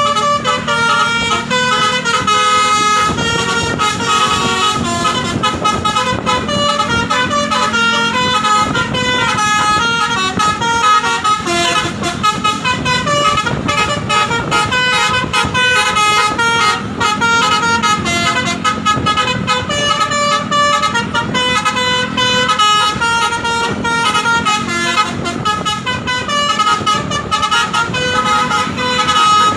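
Bus basuri (telolet) musical air horn playing a tune: a fast, unbroken run of stepped horn notes over a steady low drone.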